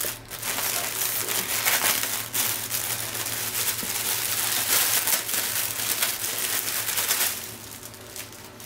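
Clear plastic bag crinkling as it is handled and opened, a dense rustle that dies down after about seven seconds.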